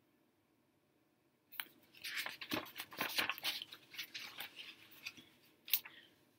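A picture book's paper pages being turned and handled: a crackling paper rustle lasting a few seconds, starting about a second and a half in, with one sharp click near the end.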